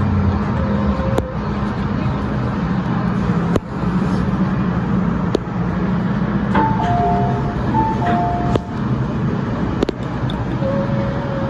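MTR M-train running through a tunnel: a steady rumble with a low hum and a few sharp clicks. About six and a half seconds in, a two-tone chime (high note then low note) sounds twice over the train's speakers.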